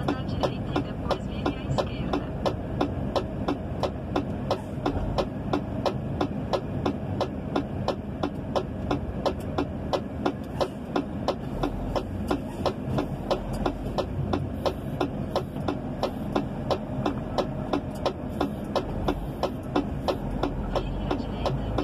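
Truck driving, heard from the cab: a steady low engine and road rumble, with an even ticking, about three ticks a second.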